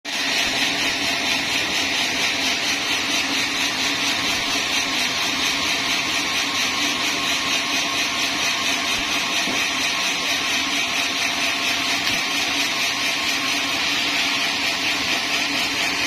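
Sawmill band saw running steadily with a high whine and a fast, even pulsing.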